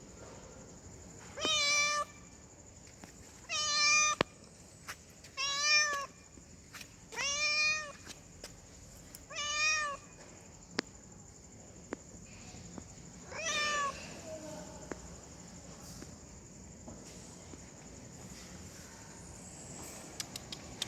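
Female cat in heat calling: six meows, each rising then falling in pitch, coming about every two seconds, then stopping about fourteen seconds in, leaving only faint ticks.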